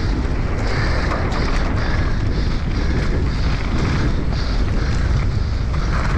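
Wind buffeting the camera microphone over the rumble of a mountain bike's tyres rolling fast down a dirt and gravel singletrack.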